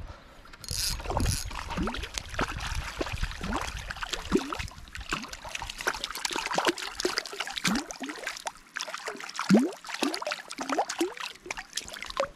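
Water splashing and sloshing as a hooked brown trout thrashes at the surface in the shallows while it is brought to hand, in irregular splashes with a strong burst about a second in.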